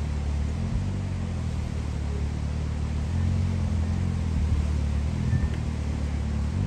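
Side-by-side UTV engine running at low revs as the machine crawls slowly over boulders, a steady low rumble that rises slightly now and then.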